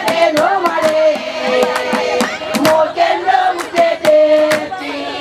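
A group of women singing together in unison with sharp hand clapping beating time.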